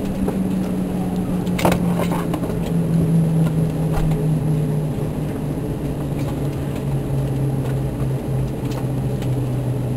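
Airbus A320 cabin noise at the stand: a steady hum that slowly falls in pitch throughout, with a couple of sharp clicks about two and four seconds in.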